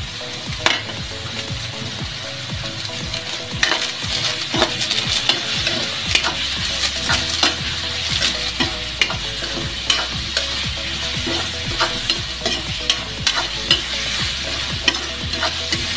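Chicken pieces sautéing in oil in a metal wok, sizzling steadily, while a spatula stirs them, scraping and clicking against the pan many times.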